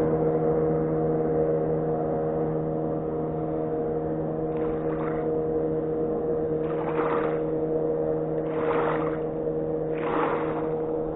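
A boat engine running steadily at an even pitch. From about four seconds in, short swishing noises recur every second or two.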